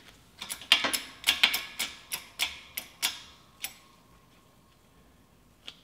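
A quick run of about a dozen sharp metal clicks and light knocks over some three seconds, with one more near the end: metal press cups and the differential mount tapping against each other and the press plates as they are shifted and centered in a shop press.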